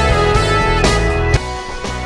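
Background music with a steady beat, dropping in level about one and a half seconds in.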